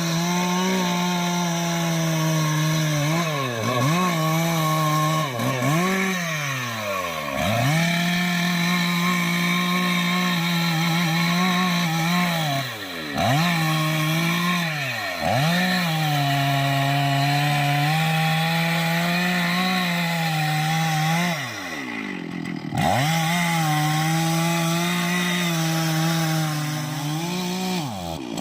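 Two-stroke chainsaw running at high revs while cutting jackfruit wood. The engine pitch dips and climbs back several times as the throttle is eased and opened again, dropping almost to idle twice.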